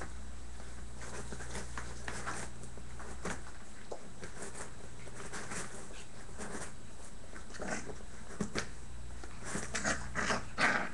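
Five-week-old bearded collie puppies giving short yips and whimpers, a few scattered in the last few seconds and the loudest at the very end, over a steady low hum.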